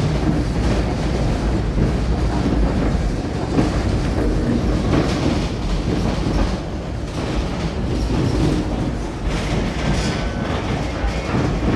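V3A-93 articulated tram in motion, heard from inside the car: wheels running along the rails with a steady low noise and scattered knocks from the track.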